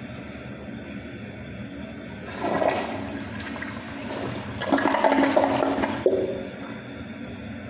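Kohler Highline Class Five toilet flushing. A rush of water enters the bowl a little over two seconds in, then a louder swirling, draining rush follows as the bowl empties and stops abruptly about six seconds in.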